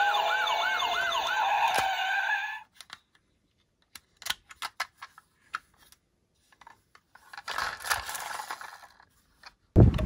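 Several toy emergency-vehicle electronic sirens sounding at once, one a fast yelp and others slow wails, cutting off about two and a half seconds in. Scattered light clicks and a soft rattle follow, as of small toy cars on a plastic track, and a sudden louder rushing noise starts near the end.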